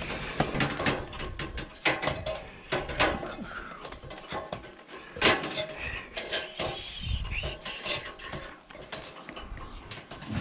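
Irregular metallic clanks and knocks from an aluminium extension ladder as a person climbs down it, gloved hands gripping the rails and feet stepping on the rungs.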